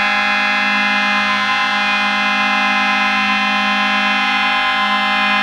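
Fort Wayne Komets hockey goal horn sounding one long, steady, loud blast.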